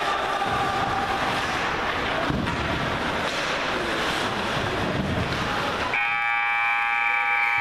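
Hockey rink din of skates on the ice and a distant crowd, then about six seconds in a loud, steady rink horn starts and keeps sounding.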